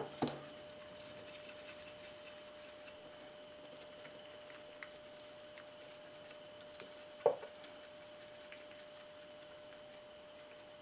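Quiet faint steady hum with a few light metal clicks as bolts are turned in by hand on the engine's side cover, and one sharper click about seven seconds in.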